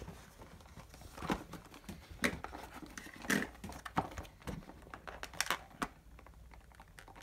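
A cardboard Beyblade toy box being handled and turned over on a wooden table while fingers pick at its flaps: irregular light taps, scrapes and rustles of card.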